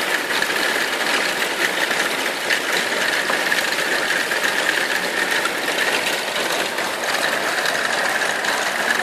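Large hail and heavy rain pelting down in a thunderstorm, a dense, steady clatter of countless small impacts.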